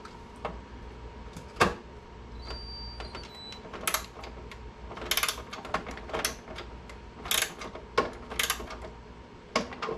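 Scattered clicks and knocks of hand-tool work on a motorcycle's plastic lower fairing as its mounting clamp is tightened, with a short high squeak between two and three seconds in.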